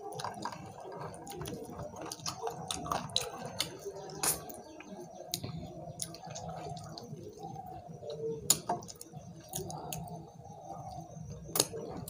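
Wet chewing and mouth sounds of two people eating with their hands, with small sharp clicks scattered throughout and a few louder ones.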